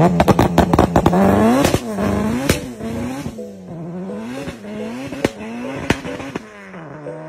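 Honda Civic EK3 hatchback's engine held at high revs with a rapid run of exhaust crackles and pops, then pulling away hard through the gears. The engine note rises and drops with each shift, with a few more pops, and fades as the car drives off.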